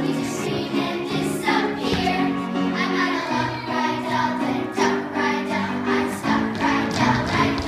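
A group of children singing together over accompanying music.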